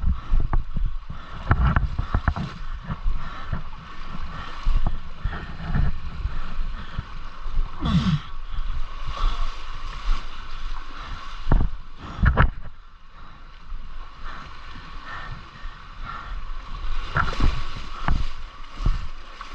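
Rushing, gurgling river water with scattered low knocks and thumps.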